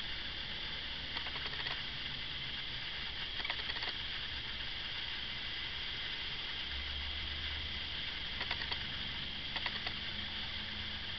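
Steady recording hiss with a low hum underneath and a few short clusters of faint crackles, about four of them.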